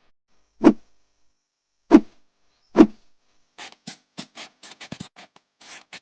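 Three sharp knocks a second or so apart, then a quick run of lighter clicks and taps of hard objects.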